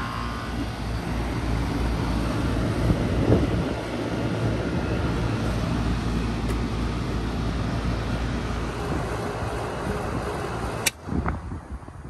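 Outdoor condensing unit of a 1989 Carrier TECH2000 38YG heat pump running, with its original Tecumseh compressor and the condenser fan giving a steady low hum under rushing air. About 11 seconds in there is a sharp click and the sound drops much quieter.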